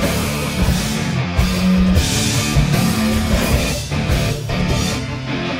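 Heavy rock intro music with distorted electric guitar and a steady beat.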